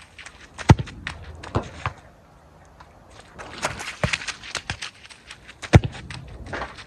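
Football kicked hard twice, two sharp thuds about a second in and near the end, between running footsteps slapping and splashing on a waterlogged pitch.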